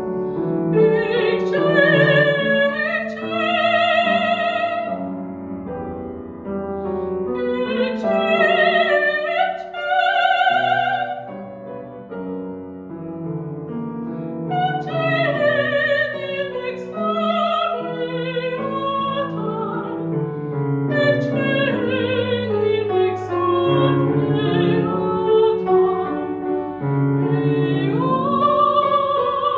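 A soprano singing in classical operatic style with strong vibrato, accompanied by a grand piano. The voice comes in long phrases with short breaks between them while the piano plays on.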